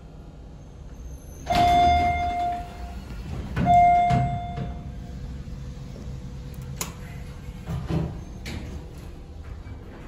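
Dover elevator's replacement chime sounding twice: two held electronic dings of the same pitch about two seconds apart. A few sharp clicks and knocks follow near the end, over a low steady rumble.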